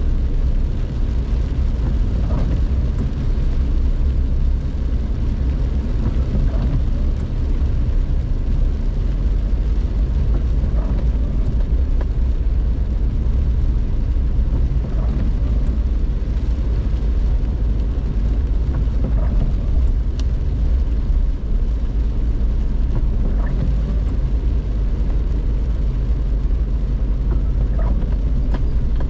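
Car driving, heard from inside the cabin: a steady low rumble of engine and tyres, with a faint short sound recurring about every four seconds.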